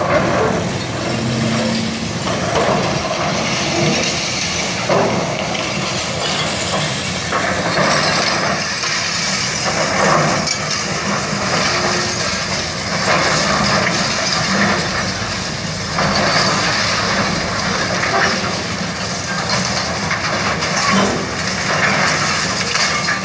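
Sumitomo hydraulic excavator's diesel engine running steadily under load while its bucket breaks and drags reinforced-concrete rubble. The work brings irregular crashes and scrapes of concrete and steel rebar every few seconds.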